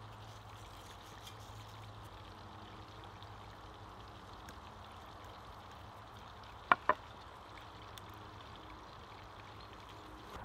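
A steady soft hiss, with two sharp clicks about a fifth of a second apart roughly two-thirds of the way through.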